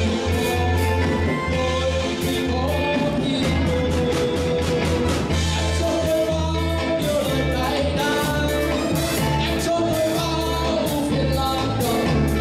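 Live band performing a song: a male singer on a microphone over keyboard, electric guitar, bass guitar and a drum kit keeping a steady beat.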